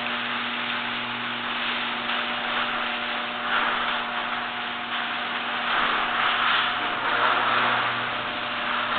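Genie garage door opener running steadily as it moves the door, a constant motor hum under a rushing mechanical noise. Its hinges, spring and drive are freshly greased, and it runs without the noise it used to make.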